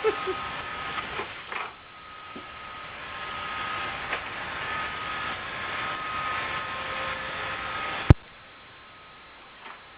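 Roomba robot vacuum running: a steady motor whine with brush noise, which cuts off abruptly with a sharp click about eight seconds in.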